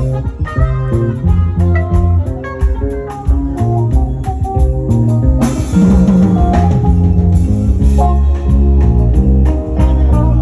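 A live band playing an instrumental number at a sound check: a strong bass line and melodic notes over a steady beat, with crashes about halfway through and again a couple of seconds later.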